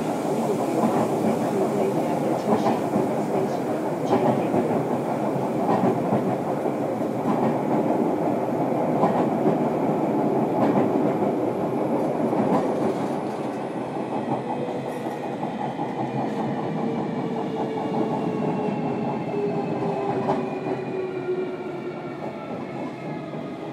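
Inside a JR Kyushu 305 series electric train's motor car: a steady running rumble with regular wheel clicks over rail joints. From a little past halfway, the level drops and the traction motors' multi-tone whine falls steadily in pitch as the train slows.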